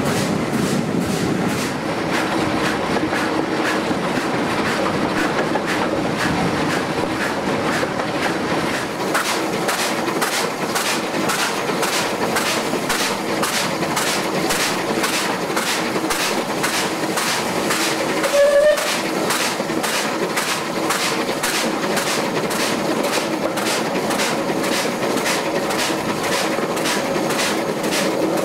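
Steam-hauled train running at speed, heard from an open carriage window behind the three-cylinder Bulleid West Country Pacific 34046 Braunton: a fast, even beat over the steady noise of wheels on rails. A brief louder sound comes about two-thirds of the way through.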